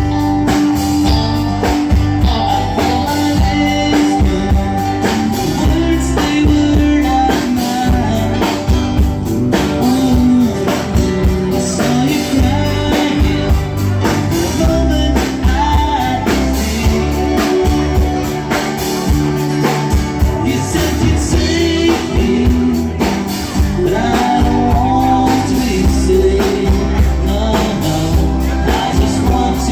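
A live band playing a rock song, with guitar and drum kit.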